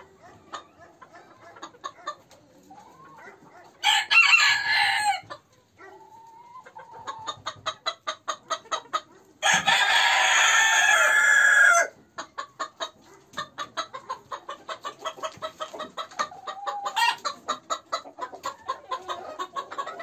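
Chickens clucking, with a rooster crowing twice, first about four seconds in and again near the middle. The second crow is longer. Between the crows come many short, quick clucks and clicks from the flock.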